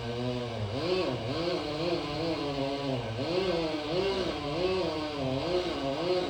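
Chainsaw running, its engine pitch rising and falling in regular waves about twice a second.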